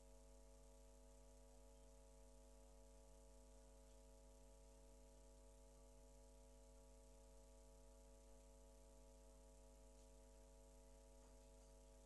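Near silence: a steady electrical hum with faint hiss from the recording chain.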